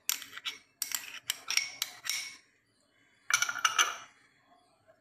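Glass bowls clinking and tapping together as chopped red onion is tipped from one into another: quick clusters of clinks through the first two seconds, then another short burst a little past three seconds.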